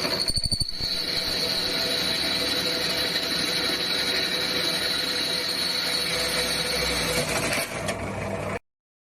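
A power tool cutting galvanised steel square tube, with a steady high whine over a hiss of cutting noise. It cuts off suddenly near the end.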